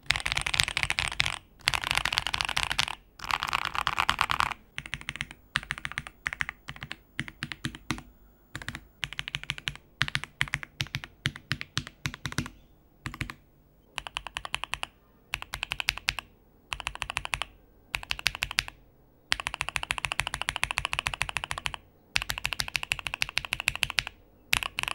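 Typing sound test on a PG67 mechanical keyboard with lubed and filmed Equalz Tangerine linear switches. Runs of fast typing are broken by short pauses, with a stretch of slower, separate keystrokes in the middle.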